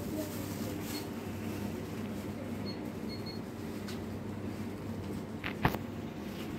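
Shop room tone: a steady low hum with a few faint clicks, and one sharper knock about five and a half seconds in.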